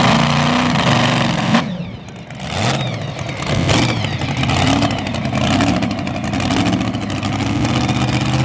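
Supercharged engine of a modified pickup pulling truck running and being revved in bursts as it rolls past. It drops off sharply about a second and a half in, then is blipped up again several times.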